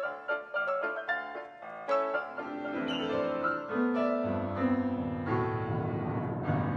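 Quick staccato notes of background music, then a grand piano sounding as a cat walks across its keys: overlapping, uneven notes and clusters, with deep bass notes about four seconds in.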